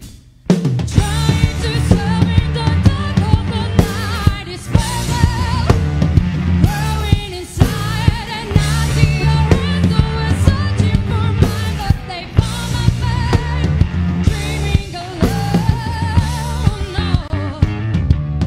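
A live band plays a song with a woman singing the lead in English, backed by drum kit, electric guitar, bass guitar and cello. The music comes in after a brief gap about half a second in.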